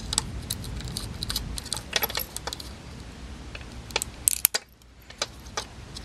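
Small scattered clicks and ticks of a jeweler's screwdriver working the tiny screws out of a Hubsan X4 micro quadcopter's plastic back shell, with a low rumble of fingers handling the frame for the first second and a half.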